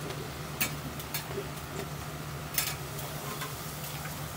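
Pork offal (horumon) frying on a flat iron griddle, with a faint sizzle over a steady low hum, broken by a few sharp clicks of utensils and dishes.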